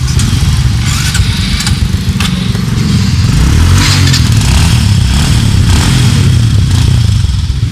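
Small motorbike engine running close by, its revs rising and falling, with a few sharp clacks in the first half.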